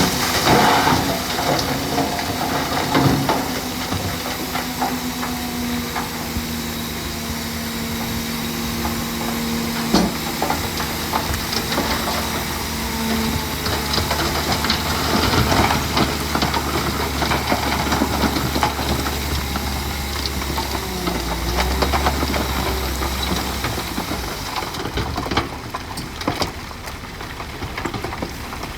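Heavy diesel earthmoving machinery running steadily under a constant hiss, with a few sharp knocks. A deeper rumble swells about two-thirds of the way in.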